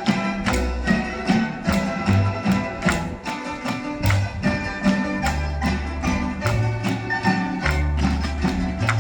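Music with a steady percussive beat, a moving bass line and a melody.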